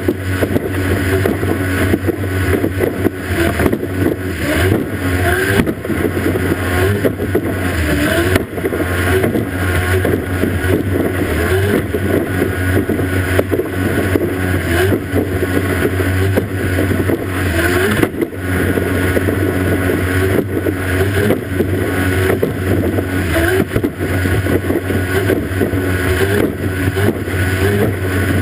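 Racing outboard motor on a powerboat running steadily at speed, a constant low drone under the rush of water spray and wind. The sound dips briefly twice.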